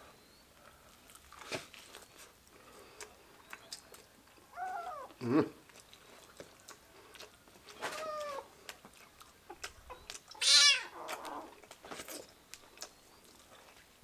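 A kitten meowing three times, about five, eight and ten and a half seconds in, the last call the loudest, begging for the duck meat held just above it. Small clicks of chewing fall between the calls.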